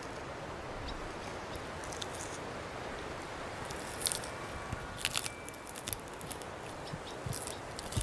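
Flower petals being plucked and bitten: sharp little clicks and crunches that start about halfway through, over a steady background hiss.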